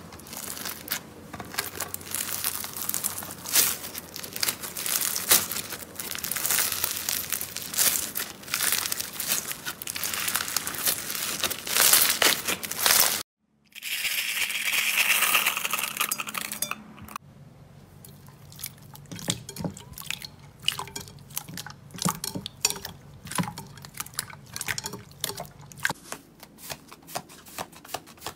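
Foam-bead slime (floam) squeezed and pressed by hand, a dense crackle of tiny foam beads. After a cut, a few seconds of hissing liquid sound as small toys are tipped into clear slime, then softer scattered clicks and pops from fingers poking into a thick slime.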